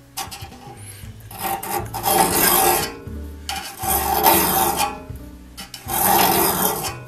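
Hand file rasping on a pointed tooth of a one-man crosscut saw, shaping the tooth: a light stroke at first, then three long strokes of about a second each with short pauses between.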